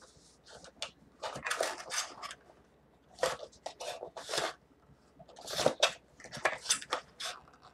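Paper leaflets and cardboard packaging rustling and crinkling as they are handled, in irregular bursts.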